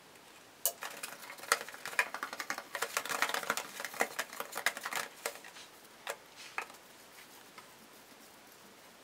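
A hand spreading oil around the inside of a plastic storage box: a run of quick, light clicks and rubbing taps against the plastic for about five seconds, then a few scattered taps.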